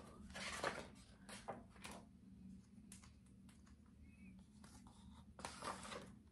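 Paper pages of a picture book rustling as they are turned by hand, in two spells: a series of rustles in the first two seconds and another about a second before the end.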